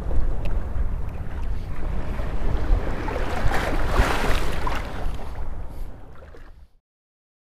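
Wind buffeting the microphone over open sea water, with a louder rushing stretch around four seconds in; the sound fades and cuts off to silence shortly before the end.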